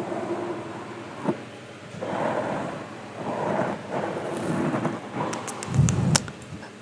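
Close-microphone inaudible whispering in short breathy phrases, with a low puff of breath hitting the microphone and a few sharp clicks near the end.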